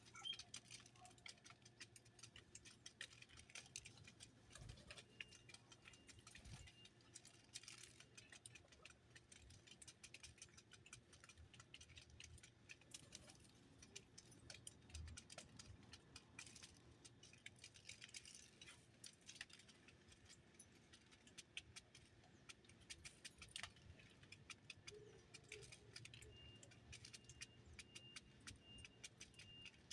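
Small birds pecking and scrabbling at a seed feeder: a dense run of faint, irregular ticks and clicks, with a thin high note repeated evenly about twice a second near the end.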